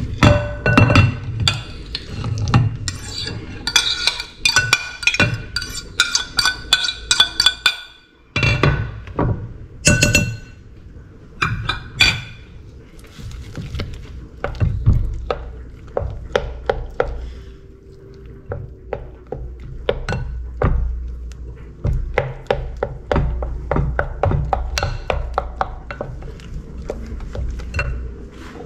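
A metal fork scraping mashed banana off a plate and clinking against the rim of a glass mixing bowl, with a few sharp ringing taps a little after the middle. Then a wooden spoon stirring the mashed banana into the wet mixture in the glass bowl: wet squishing with quick soft knocks against the glass.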